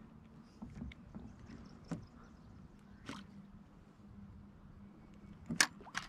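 Faint scattered clicks and taps of a spinning rod and reel being handled in a kayak while a lure is jigged, the sharpest a pair of clicks near the end, over a faint steady hum.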